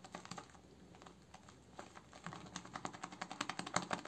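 A Semogue 2000 boar-bristle shaving brush is worked through thick shaving-soap lather in a bowl, giving fast, wet crackling clicks. They grow denser and louder from about halfway in.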